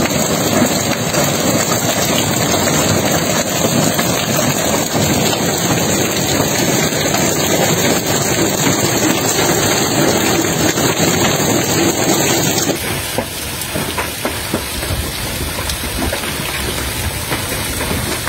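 Hailstorm: hailstones pelting down on a garden lawn and paving in a dense, steady clatter. About thirteen seconds in it switches abruptly to a slightly quieter downpour of hail and rain with water pouring off a roof edge.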